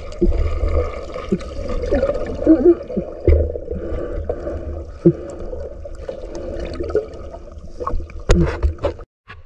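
Muffled underwater sound picked up by a submerged camera: a low rumble of water moving against it, with bubbling gurgles and a few sharp clicks, the loudest near the end. The sound cuts out briefly just before the end.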